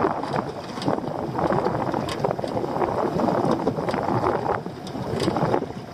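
Water slapping and lapping against the hull of a small drifting boat, with wind on the microphone and a few brief sharp knocks against the hull.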